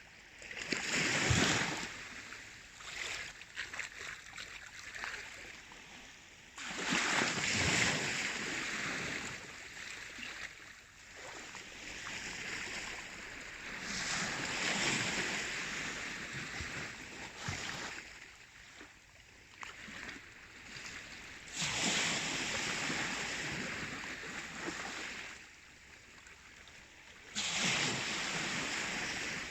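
Baltic Sea waves washing in: five surges of rushing water about six to seven seconds apart, each swelling and then fading.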